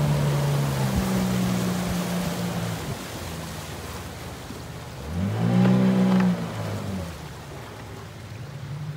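Tohatsu outboard motor pushing a small aluminium boat upriver, with water hissing along the hull. The engine eases off about three seconds in, then revs up loudly for about a second near the middle before dropping back.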